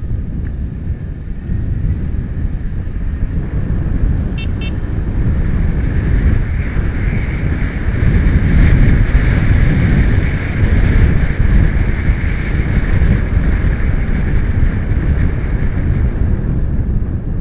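Wind buffeting the camera's built-in microphone on a moving Yamaha motorcycle, with engine and road noise underneath; it grows louder about eight seconds in as the bike gathers speed on an open road. A brief double beep sounds about four and a half seconds in.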